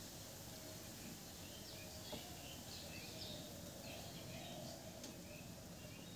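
Faint steady background noise with birds chirping: many short, high chirps, several each second.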